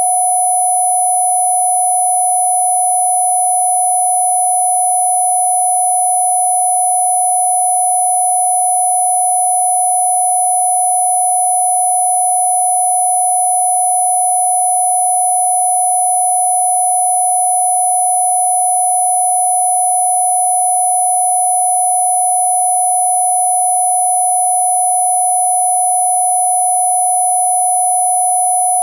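Synthesized Rife-frequency sine tone, a steady mid-pitched hum held without change, with a steady high-pitched whine above it and fainter tones in between.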